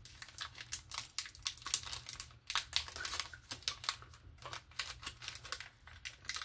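Yu-Gi-Oh! trading cards being handled by hand: a quick, irregular run of light clicks and rustles as the cards are flicked and shuffled against one another.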